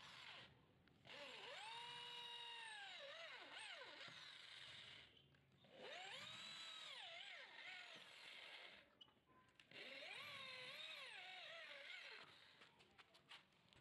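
Corded electric hand drill boring holes in a thin iron plate: the motor whine rises as it spins up, holds steady while cutting, and falls away as it stops, three times over. A few light clicks come near the end.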